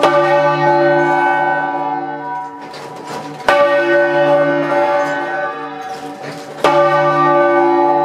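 Large church bell swung by hand from its wooden headstock lever, heard close up in the belfry. Its clapper strikes three times, about three seconds apart, and each stroke rings on with many overtones, fading before the next.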